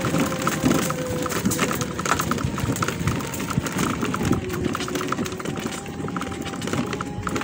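Mobility scooter rolling slowly, about 3 mph, along a dirt and gravel path: the tyres crackle and crunch over grit and twigs, over a faint electric motor whine that shifts a little in pitch.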